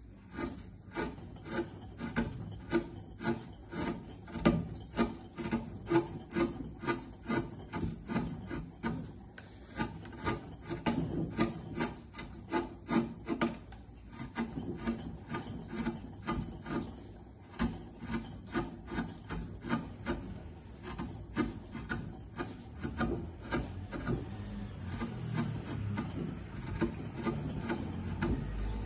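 Hand carving chisel pushed through wood, short scraping cuts repeated about twice a second as shavings are pared away.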